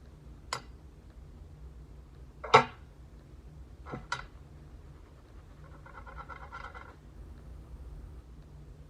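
Sharp taps and clicks of small tools being handled during soldering work: one about half a second in, a loud one about two and a half seconds in, and a quick double click near four seconds. They are followed by a short buzzing tone lasting about a second and a half, over a steady low hum.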